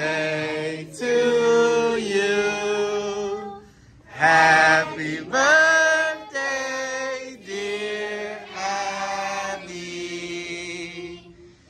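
A girl singing a slow song in long held notes, with a short break about four seconds in.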